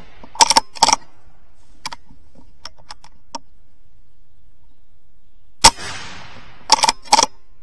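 BSA Super10 pre-charged air rifle firing a single sharp shot about five and a half seconds in, followed by a short fading rush and a couple of quick mechanical clicks about a second later. Earlier there are two short clusters of clicks about half a second and one second in, and a few faint ticks around the middle.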